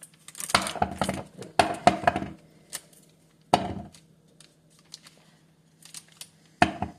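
Grapes being twisted and pulled off their stems and dropped into a cup: several short rustling, clattering bursts, with a sharp knock about three and a half seconds in.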